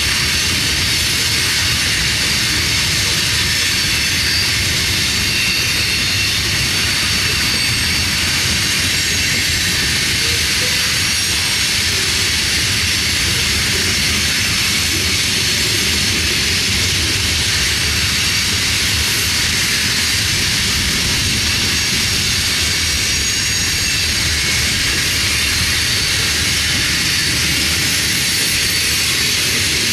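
Covered hopper cars of a freight train rolling past on steel rails: a steady wheel rumble under a continuous high hiss from wheels on the rail.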